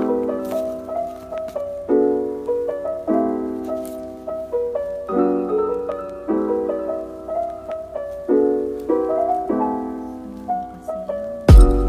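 Background piano music: gentle sustained chords, each struck and left to fade, changing about once a second. Near the end a sudden loud, deep thump cuts in.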